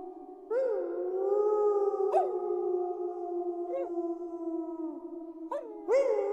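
A pack of wolves howling in chorus: several long howls overlap, and new voices come in every second or two, each with a quick upward swoop before holding and slowly falling away.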